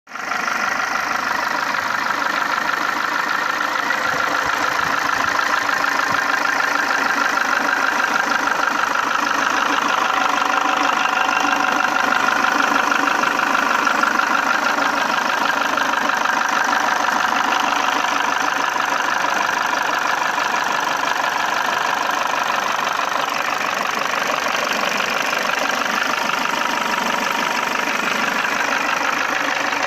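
Peugeot 307's 1.6-litre TU5JP4 petrol engine running steadily with a rapid, even knocking. The owner takes it for piston knock, presumably from the skirts of three pistons, and hydraulic-lifter additives have not cured it.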